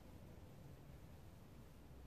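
Near silence: faint steady background noise, mostly low in pitch.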